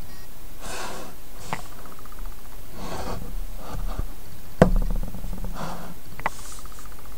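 Handling of a smartphone in a phone clamp mount: three short rustling scrapes and a few light clicks, with one sharp knock about four and a half seconds in, over a steady background hiss.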